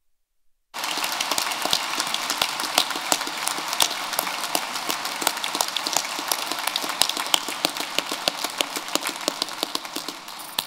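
Applause from a large audience: dense clapping from many hands that starts about a second in after a brief silence and dies away near the end.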